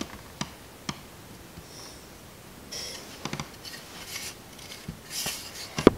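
Handling noises at a workbench as a wooden block and a sander pad are picked up and moved: a couple of light clicks, then spells of rubbing and rustling, and a sharp knock against the bench near the end.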